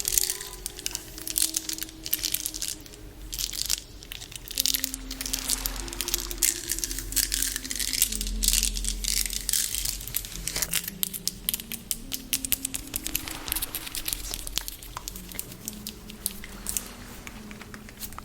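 Soft humming of a slow tune that steps downward, over dense crackling and rattling of a small object handled close to the microphone, sounding somewhat like frogs.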